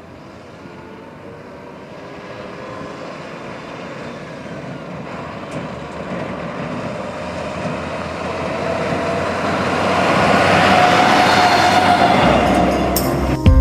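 B6 Armadillo armored bus driving over dusty dirt ground toward and past the listener: its engine and tyre noise grows steadily louder as it approaches, and is loudest as it passes close about ten seconds in.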